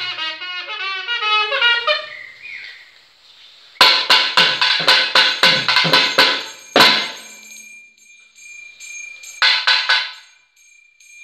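A nagaswaram plays a fast, ornamented phrase that fades out about two seconds in. After a short pause, thavil drums play a run of sharp strokes, about three a second, closing on a heavy stroke. A few more strokes follow near the end.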